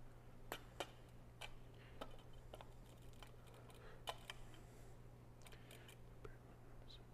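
Light clicks and clinks of altar vessels being handled as the chalice is prepared with wine and water, about a dozen scattered taps, the loudest about half a second, one second and four seconds in. A steady low hum runs underneath.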